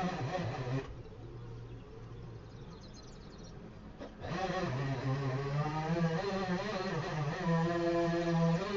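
A gardening crew's motorised garden tool buzzing at high speed. It drops back about a second in, then speeds up again about four seconds in, with a slightly wavering pitch.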